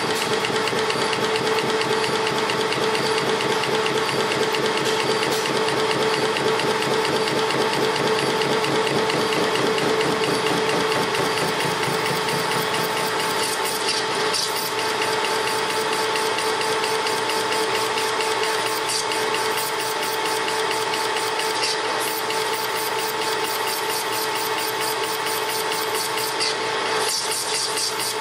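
Metal lathe spinning a BMW motorcycle connecting rod on a faceplate while a cutting tool takes metal off the rod's big end to lighten it. It runs steadily with a constant hum and a fast, even rhythmic beat.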